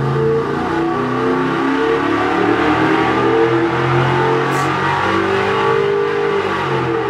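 Racing engine on an engine dynamometer at full throttle under load, revving up through a power pull from about 5,000 toward 6,000 rpm.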